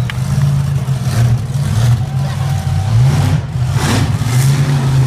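Monster truck engine revving hard, a loud low drone that climbs and drops in pitch as the truck is driven.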